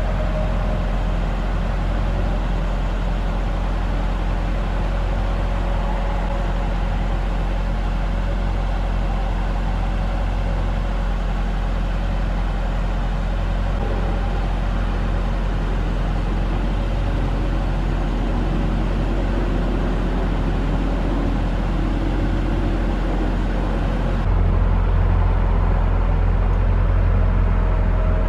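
A steady low rumble like a motor vehicle running. It gets abruptly louder about three-quarters of the way through.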